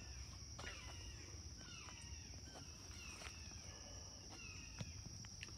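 Faint outdoor insect chorus: a steady high-pitched drone, with short falling chirps repeating about once a second.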